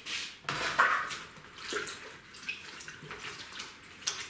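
Water splashing and sloshing in a pot as an Acanthus root ball is dunked and swished about to wash the compost off its roots, with the largest splash about a second in and smaller ones after it.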